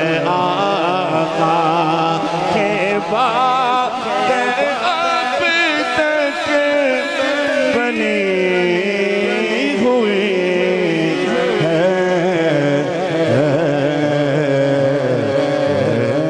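A man singing a naat, an Urdu devotional poem, into a microphone. He draws out long wavering, ornamented notes with no clear words.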